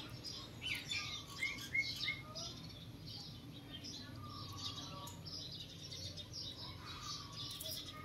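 Small birds chirping: many short, high chirps and quick rising notes, coming one after another, over a steady low hum.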